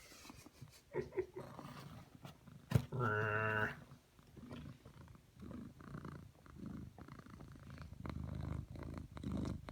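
A sleeping pet snoring in uneven, rough breaths. About three seconds in comes one louder, held buzzing snore at a steady pitch, lasting under a second.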